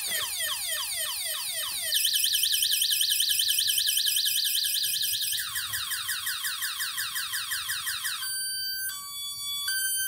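NB Power e-bike kit's anti-theft alarm going off after the armed bike is moved, cycling through its siren patterns: repeated falling sweeps, a fast high warble from about two seconds in, faster falling sweeps again, then stepped beeping tones near the end.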